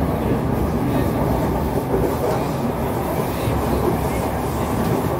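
Steady running noise inside the passenger car of a Kawasaki Heavy Industries C151 metro train moving between stations: an even, low rumble of wheels on rail.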